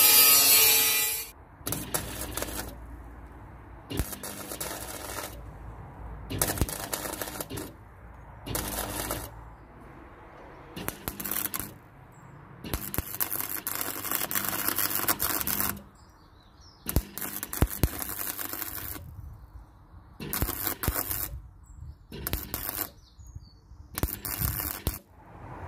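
An angle grinder cutting steel runs loud and stops about a second in. A MIG welder then sizzles in a series of short bursts, about a dozen, mostly a second or so long, with one longer run of about three seconds in the middle. These are plug welds laid through holes to join a thicker bar inside a steel section.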